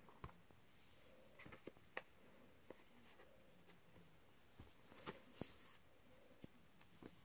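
Near silence, with faint paper rustling and a few light taps and clicks from a softcover colouring book's pages being flipped and the book being closed and turned over by hand.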